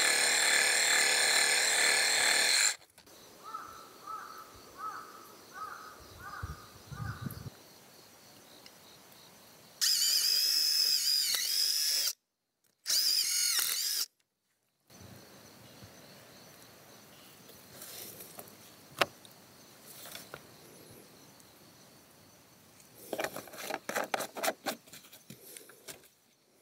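Handheld power tool whirring in short loud bursts, its high whine wavering in pitch. A run of about six short beeps comes between the first and second bursts.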